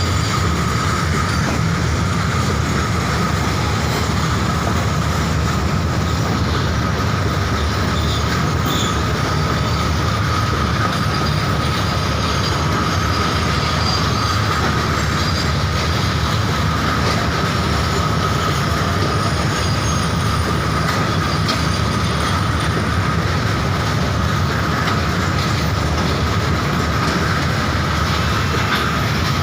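Diesel-hauled train rolling into the station, its wheels rumbling steadily on the rails under a steady high wheel squeal.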